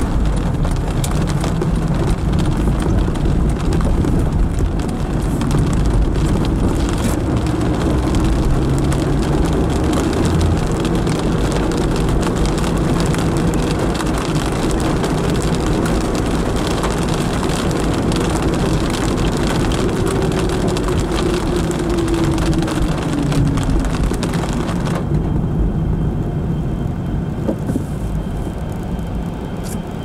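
Car driving on wet roads in the rain, heard from inside the cabin: a steady hiss of tyres and rain over a low road rumble. About 25 seconds in, the hiss drops away abruptly, leaving mostly the low rumble.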